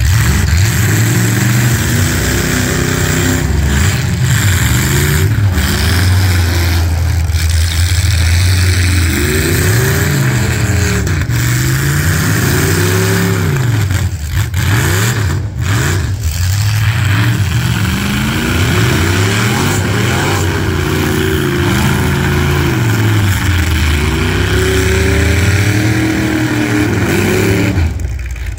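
Demolition derby cars' engines revving hard and repeatedly, several at once, their pitch rising and falling over and over as the cars accelerate, reverse and shove each other.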